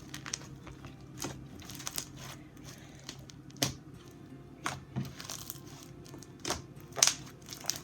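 Clear-glue slime activated with Tide being squeezed and stretched by hand. It makes crunchy crackles and sharp popping air bubbles at irregular moments, the loudest pop about seven seconds in.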